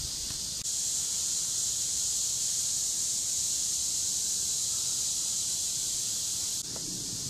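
Steady high hiss of woodland ambience with faint low rustling. It gets louder about half a second in and drops suddenly near the end.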